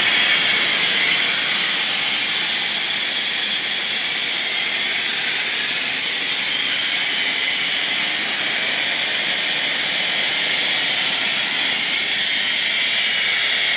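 Compressed air blowing out of a Champion HRA25-12 air compressor's receiver tank through an opened valve under the tank, a loud, steady hiss as the tank is bled of pressure. It eases a little over the first few seconds, then holds.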